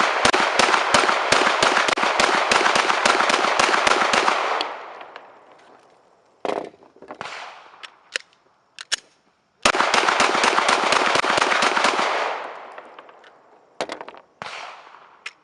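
Gunfire: a long string of rapid shots, several a second, for about four and a half seconds, then a few single shots, then a second rapid string of about two seconds starting near ten seconds in. Each string trails off in echo.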